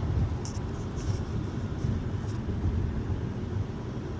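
Steady low rumble of a car's engine and tyres heard from inside the cabin while driving slowly, with a few faint high clicks in the first half.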